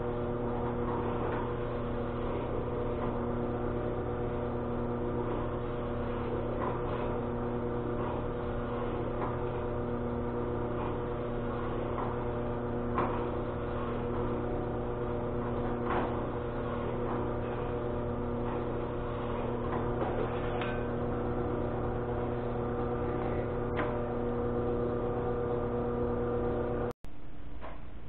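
Small bench drill press running with a steady electric-motor hum, with occasional light clicks and scrapes as a countersink bit cuts screw holes in a clear polycarbonate (Lexan) plate. The hum cuts off abruptly near the end.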